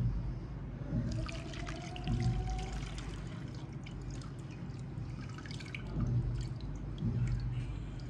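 Liquid being poured, splashing and dripping in many small irregular ticks, over background music.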